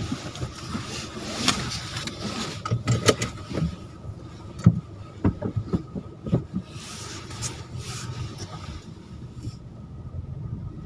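A car driving slowly over a rough sandy dirt track, heard from inside the cabin: a steady low engine hum with frequent knocks and rattles as it bumps along, thinning out near the end.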